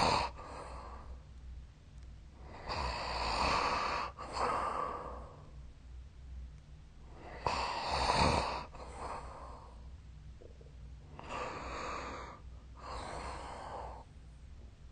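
A sleeping person breathing heavily and noisily: three breaths about four and a half seconds apart. Each is a longer rush of air followed by a shorter one, airy and hissing rather than a deep, pitched snore.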